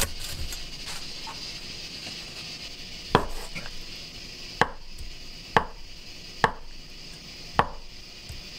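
Henckels chef's knife slicing down through a block of tofu and tapping on a wooden cutting board: five sharp taps about a second apart, starting a few seconds in.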